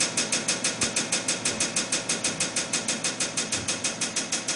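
Pressure supply unit of a hydrostatic pipe pressure tester running, a rapid, even pulsing of about six strokes a second as it builds water pressure in the pipe under test.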